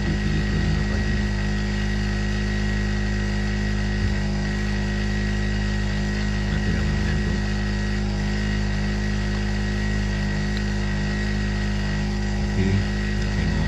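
Campsite generator engine running steadily, a constant drone with several fixed tones that holds an even pitch and level throughout.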